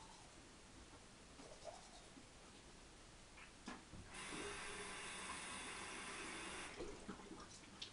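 Faint toothbrush scrubbing, then a bathroom sink faucet turned on about four seconds in, with water running into the basin for about two and a half seconds before it stops. A few light clicks follow near the end.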